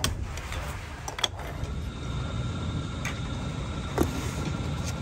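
Steady low rumble of workshop machinery, with a few sharp metallic knocks as metal oil filter canisters are handled, the loudest about four seconds in. A faint steady whine comes in after about two seconds.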